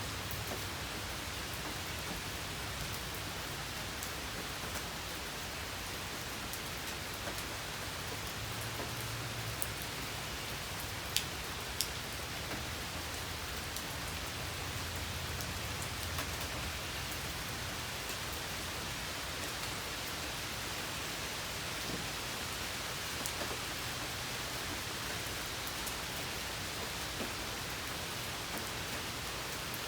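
Steady rain falling, an even hiss with scattered drops ticking on a surface; two sharper drip ticks stand out about eleven and twelve seconds in.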